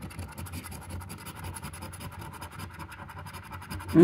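A coin scratching the coating off a paper lottery scratch card: a steady run of quick, short scratching strokes.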